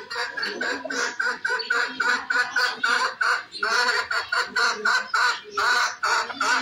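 Poultry calling in quick repeated notes, about four a second, in runs broken by a couple of short pauses.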